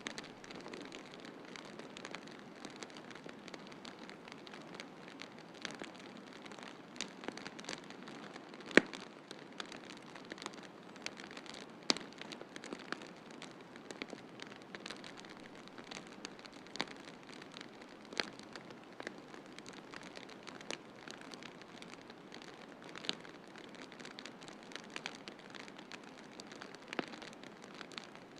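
Wood fire crackling in a fireplace, with irregular sharp pops, the loudest about nine and twelve seconds in, over a steady hiss of a snowstorm.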